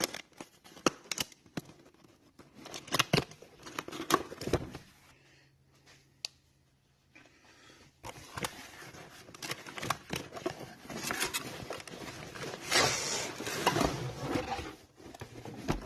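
Packaging being handled and opened: irregular crinkling, scraping and sharp clicks. There is a quieter pause about five seconds in, then denser rustling until near the end.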